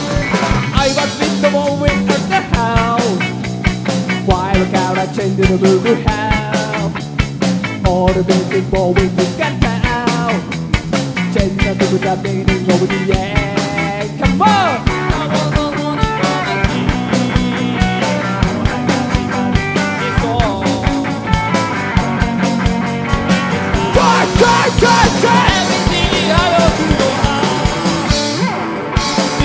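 Live rock band playing loud, with a driving drum kit beat and electric guitar. The cymbals and upper range drop out briefly near the end.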